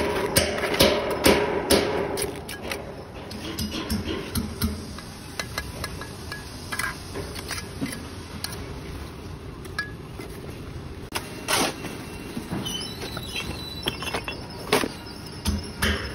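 Steel bricklaying trowel tapping and clinking on hollow clay bricks and scraping mortar as the bricks are set into a course. A quick run of taps comes first, then scattered single knocks.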